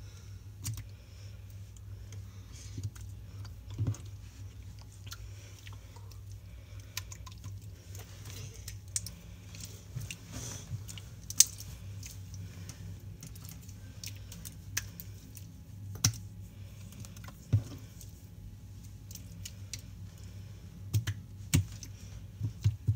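Slime being squeezed and poked by hand, giving irregular small clicks and pops, with a few sharper pops near the end.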